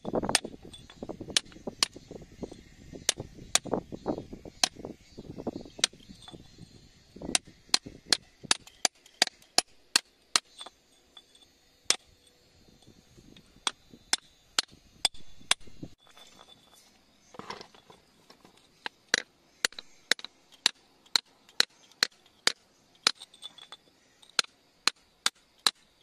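A pointed steel spike jabbing and chipping at wet rock around an embedded crystal, a long series of sharp taps. The taps come with duller thuds in the first several seconds and settle to about two a second later on.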